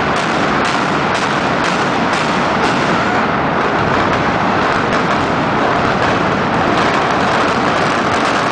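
Dynamite demolition charges firing in sequence inside a high-rise building: a rapid run of blasts, about two a second, blurring into one continuous loud rumble.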